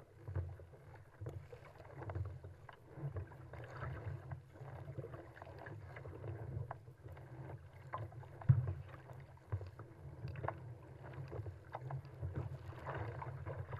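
Sea water splashing and slapping against a kayak's hull as it is paddled through choppy waves, over a steady low rumble of wind on the microphone. There is one sharp knock about eight and a half seconds in.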